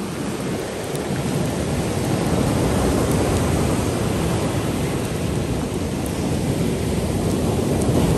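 Ocean surf breaking and washing in around stranded ice chunks: a steady deep rush that grows a little louder about a second in and then holds.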